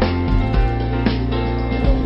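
Background music with a deep bass line and a beat about once a second.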